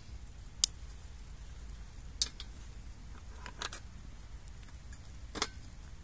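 Sharp snaps and clicks of small dry twigs being handled and fed into a tin-can wood-gas stove as it is lit: four separate cracks, roughly a second and a half apart, the first, about half a second in, the loudest.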